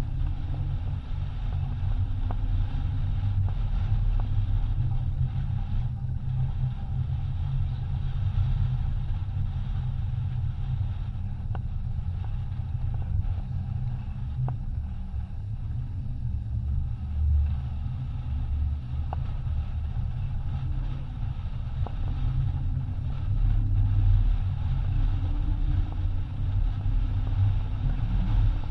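Wind buffeting the microphone as a steady, fluctuating low rumble, over the rush of water along the hull of a racing yacht sailing hard upwind.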